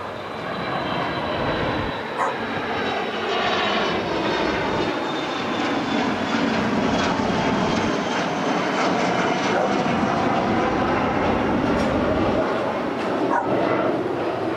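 Embraer Legacy business jet's twin rear-mounted turbofan engines at takeoff power as it lifts off and climbs away: a loud, steady jet roar with a whine that slowly falls in pitch.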